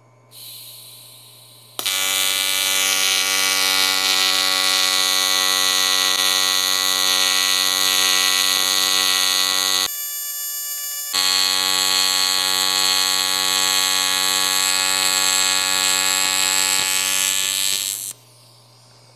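AC TIG welding arc on aluminum: a loud, steady electric buzz with a high hiss, starting about two seconds in after a short hiss, thinning briefly near the middle and cutting off sharply near the end. The machine's AC amplitude is shifted toward the negative side, and the welder finds the arc fighting him, with the tungsten wanting to ball up.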